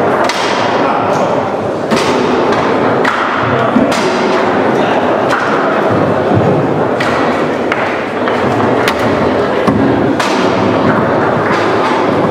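Leonhart foosball table in play: an irregular run of sharp knocks as the ball is struck by the rod-mounted figures and hits the table, with the rods clattering in between.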